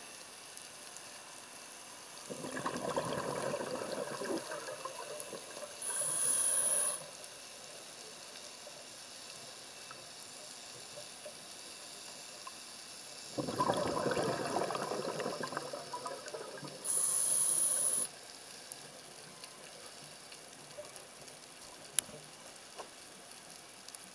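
Scuba diver breathing through a regulator, recorded underwater: twice the rumbling bubbles of an exhaled breath, each followed a little later by a short, whistling hiss of the regulator as air is drawn in.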